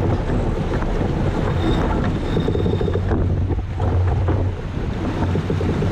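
Wind buffeting the microphone in a steady low rumble, over the rush of water along the hull of a J/24 keelboat under sail.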